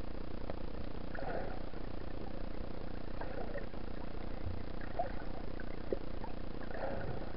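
Muffled underwater ambience picked up by a camera held below the surface: a steady low drone with a soft swish every second or two.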